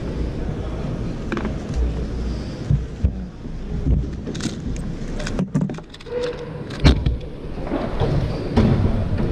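Rapid plastic clicking of a 2x2 speed cube being turned fast during a solve, in a burst of about a second a little past halfway, followed by a single sharp knock. A steady low rumble of the hall lies underneath.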